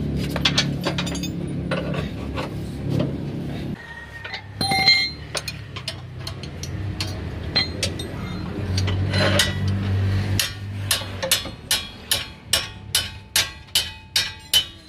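Metal hand tools clinking and tapping on steel front-suspension parts. Near the end it turns into a regular run of metal taps, about two a second, each ringing briefly.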